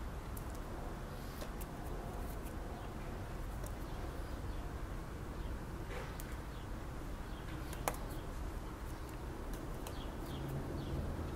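Outdoor background noise: a steady low rumble with scattered faint, short high ticks and chirps, and one sharper click about eight seconds in.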